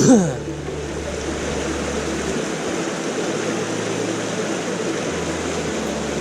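Steady rushing water from a sewer discharge outflow, with a brief falling swish right at the start.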